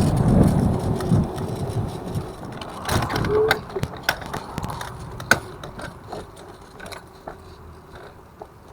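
Evercross H5 electric scooter rolling with a rough grinding rumble from its front wheel, fading over the first couple of seconds as it slows, then scattered clicks and knocks. The grinding is the sign of bad front wheel bearings.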